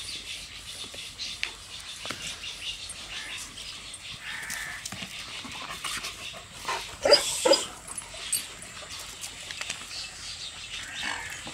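Pakistani bully dog (Aseel Bully) panting steadily with its mouth open. Two short, louder sounds come about seven seconds in.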